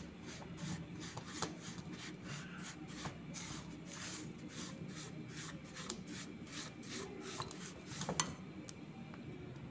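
Spatula stirring and scraping a dry, crumbly mix of roasted semolina, gram flour and milk powder around a metal pan: faint repeated scraping strokes, with one sharper knock near the end.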